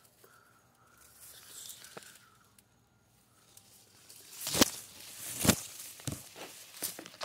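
Quiet at first, then from about four and a half seconds in a run of crunching, rustling steps on mulch and dry leaves among garden plants, the loudest about a second apart.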